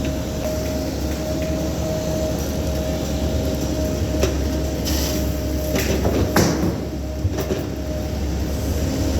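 Cat 308 mini excavator's diesel engine running steadily under working load, with a constant whine over it and a few sharp metallic clanks between about four and seven and a half seconds in.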